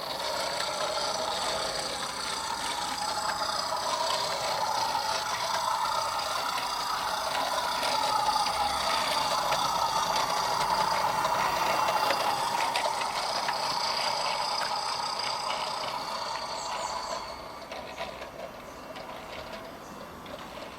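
A model diesel locomotive running along its track, with the diesel engine sound from a small battery sound capsule coming through a tiny speaker over the rattle of the wheels and drive on the rails. It becomes quieter near the end.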